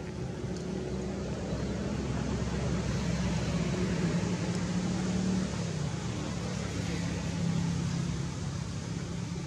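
A motor running with a steady low hum over background noise, growing louder toward the middle and easing a little after about five seconds.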